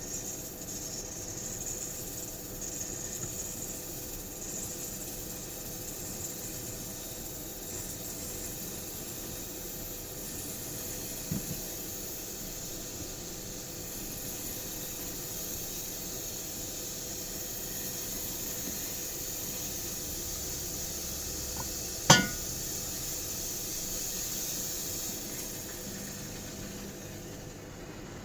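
Breville BES870 espresso machine flushing hot water and steam through its lines to clean them: a steady hiss, with a light click about 11 seconds in and a sharp knock about 22 seconds in. The hiss drops away near the end.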